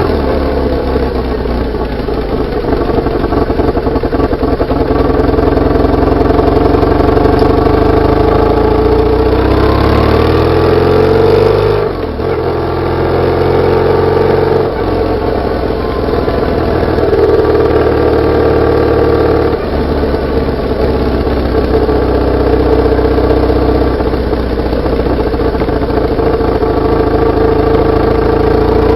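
BMW R850R's air-cooled boxer-twin engine and exhaust under way, picked up close to the exhaust. It rises in pitch as the bike accelerates, dips briefly at a gear change about twelve seconds in, climbs again, then runs steadily at cruising speed.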